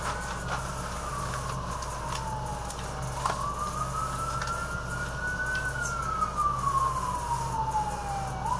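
Emergency-vehicle siren on the wail setting, one tone sliding slowly up and down in pitch, a few seconds each way.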